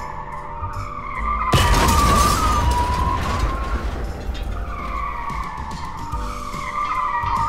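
A tyre-screech sound effect: a wavering squeal that repeats as a loop, over background music. About a second and a half in there is a sudden loud burst of noise, like a crash or whoosh effect, fading over about two seconds.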